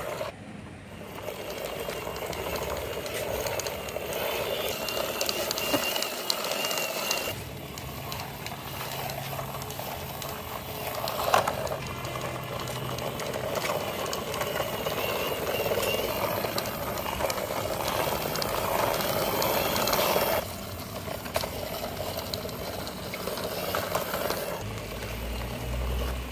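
Plastic wheels of a toy truck rolling and rattling over rough concrete as the truck is pushed by hand, in long runs broken by a couple of brief pauses.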